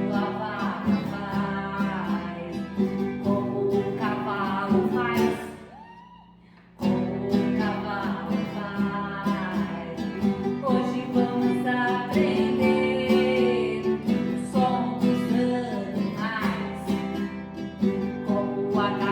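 A children's song sung to a strummed acoustic guitar. The music fades out about five seconds in, then comes back in sharply just under two seconds later.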